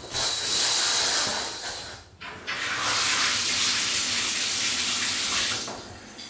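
Shower spray running, a loud even hiss of water with a faint high whistle in it, cutting out briefly about two seconds in and dipping again near the end as the flow is interrupted.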